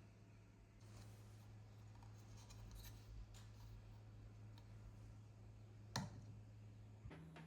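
Faint light clicks and scraping of small objects being handled, with one sharper click about six seconds in, over a low steady hum.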